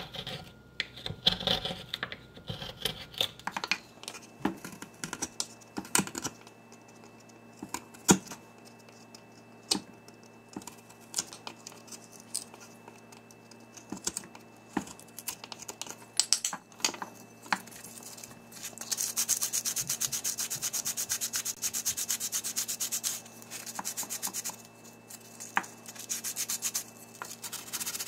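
A small carving tool scrapes and gouges wood out of the bowl of a pine spoon in short, separate strokes. About two-thirds in comes a run of fast back-and-forth sanding strokes, a rhythmic hiss lasting about four seconds, then a few slower rubs.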